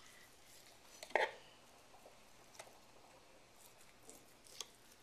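Carving utensils knocking and clicking as a roast chicken is cut up: one short, sharper knock about a second in, then a few faint clicks.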